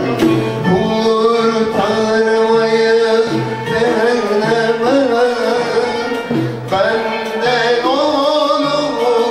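A man singing solo in Turkish classical style, a şarkı in makam hicazkâr, his voice sliding and ornamenting over a sustained instrumental accompaniment.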